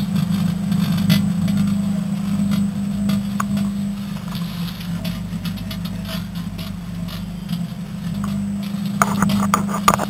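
Microwave oven running with a steady low mains hum, while the metal inside arcs and burns with irregular crackling and sharp clicks.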